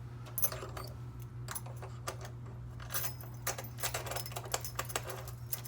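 Metal key blanks clinking and jangling as a handful is sorted and hung on display hooks, many irregular small clicks that grow busier toward the end.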